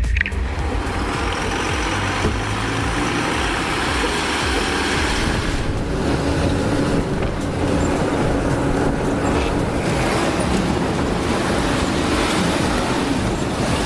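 A heavy vehicle running steadily, its engine and tyre or road noise making an even rush with no breaks.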